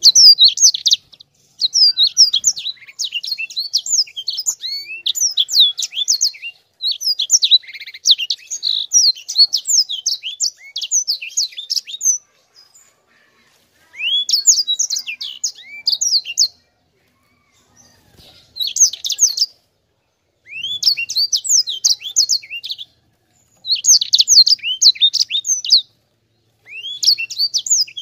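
Caged sanger finch singing a fast, high twittering song in long rolling phrases, several bursts with short pauses between them.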